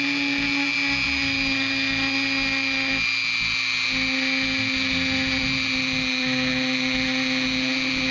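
Dremel rotary tool with a carbide end mill engraving into steel, a steady high-pitched whine whose pitch dips slightly for about a second around three seconds in.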